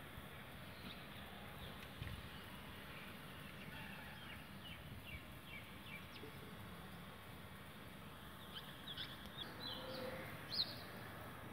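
Small birds chirping in short, high calls, scattered at first and louder and busier near the end, over a faint steady background hiss.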